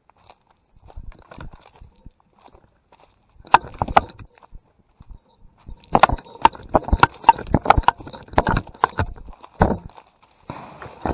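Sharp knocks and clicks: a pair a little over three seconds in, then a fairly even run of about three a second for some four seconds, and a short scuffle near the end, as the wet camera moves through the woods.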